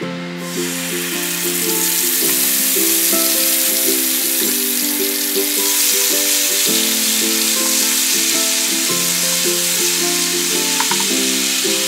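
Tomato puree sizzling in hot mustard oil in a frying pan. The sizzle starts suddenly about half a second in, as the puree hits the oil, then goes on steadily. Background ukulele music plays throughout.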